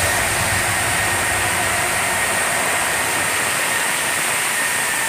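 A steady rushing hiss with a faint high whistle running through it.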